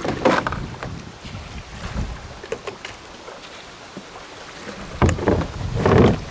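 Wind buffeting the microphone, with handling noise as a case is set into a plastic kayak's rear well under bungee cords: a knock and rustle just after the start, then a longer, louder scraping and knocking about five seconds in.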